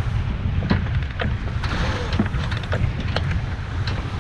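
Wind buffeting the microphone and water rushing past the hull of a sailing yacht under way, a steady heavy rumble with a scatter of short sharp clicks.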